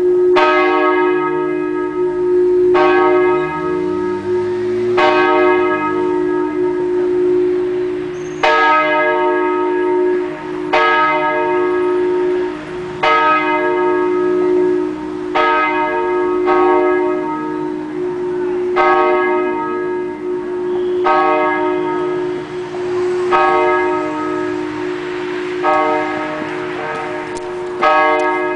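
Catholic church bells ringing before Mass. The strikes come roughly every two seconds at an uneven pace, sometimes two close together, over a steady low hum that rings on throughout.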